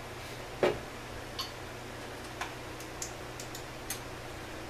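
Irregular light clicks and taps of small metal parts from a two-stroke trimmer engine being handled on a workbench, the sharpest about half a second in, over a steady low hum.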